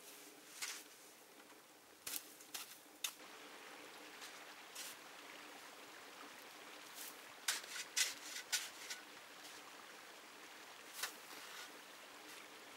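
Small plastic snow shovel scooping and scraping snow in short, irregular strokes, with a quick run of several strokes a little past the middle.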